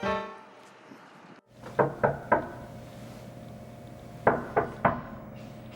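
Someone knocking on a door: three quick knocks, then three more about two seconds later, over a low steady room hum. A fading musical note is heard at the very start.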